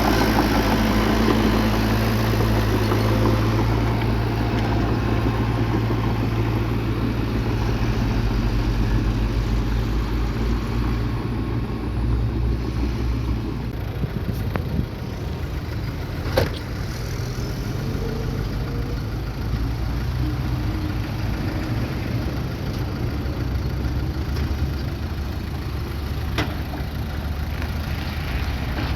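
Bulldozer's diesel engine running steadily, a little louder for the first ten seconds or so and then easing off slightly. Two sharp metallic knocks stand out, about halfway through and again near the end.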